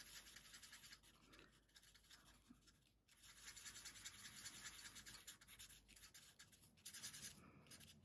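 Faint scratching of an alcohol-marker tip (Stampin' Blends) colouring on vellum, in stretches of small strokes with brief pauses.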